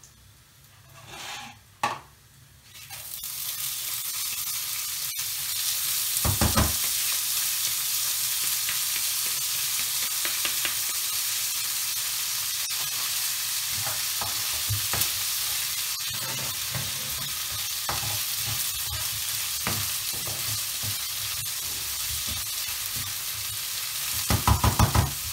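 Rice and orzo frying in hot butter and oil in a frying pan: quiet at first, then about three seconds in a steady sizzle starts as the rice goes into the pan, and a wooden spoon stirs and scrapes against the pan now and then, in a quick run of strokes near the end.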